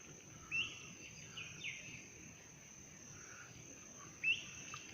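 Forest bird calls: a few short, sharp chirps, each a quick upward flick that levels off, the loudest about a second in and near the end, over a steady high-pitched background drone.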